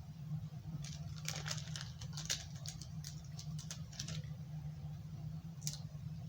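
Hands working small paper craft materials: a run of small crackles and clicks from handling a glue dot and cotton ball on a paper plate, easing off after a few seconds with one more click near the end, over a steady low electrical hum.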